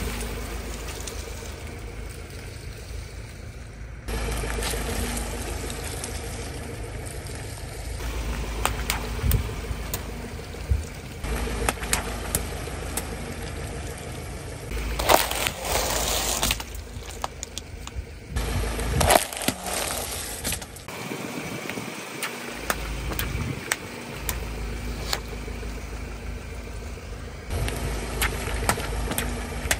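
A car's tyre rolling slowly over asphalt with its engine idling, crushing piles of water beads and other small filled objects with sharp cracks and pops. The sound changes abruptly every few seconds, with the loudest crushing a little past the middle.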